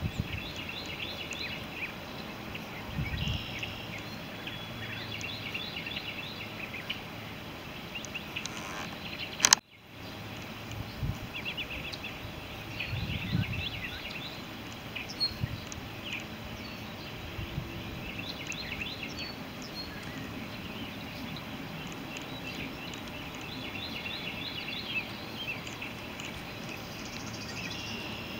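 Birds chirping in repeated short bursts over a steady outdoor hiss. A sharp click about ten seconds in is followed by a brief drop-out.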